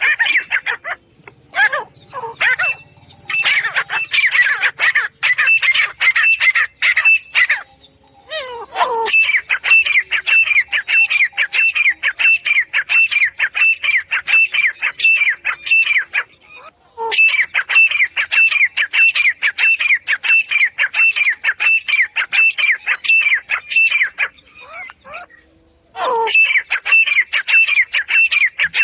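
Grey francolin (teetar) calling: long runs of fast, repeated high notes, about three a second, broken by short pauses three times.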